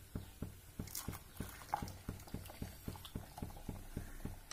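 Milk at a rolling boil in a pan, bubbling with soft, regular plops about four a second.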